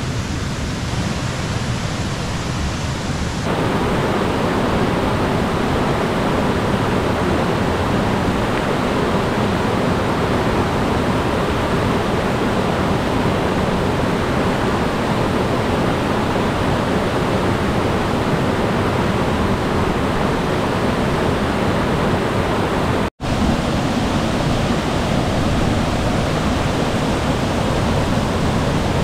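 Rushing stream water, a loud steady noise, close by. It gets a little louder about three and a half seconds in and breaks off for an instant about 23 seconds in.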